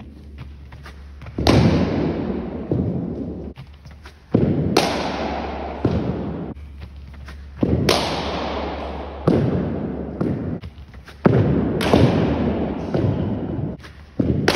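Cricket bat striking a cricket ball in an indoor net, about eight sharp cracks and thuds, each trailing off in a long echo from the hall.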